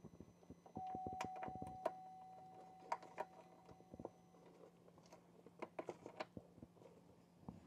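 Quiet room with faint, scattered clicks and taps from gloved hands handling a plastic headlight assembly wrapped in protective film, over a low steady hum. A faint steady tone starts about a second in and fades after a few seconds.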